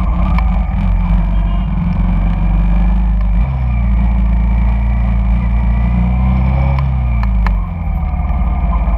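Honda Shadow cruiser's V-twin engine running under way in traffic, heard from the bike itself. It pulls harder a little over a third of the way in, its note rising slowly, then eases off near the end, over the steady noise of surrounding motorbike traffic and wind.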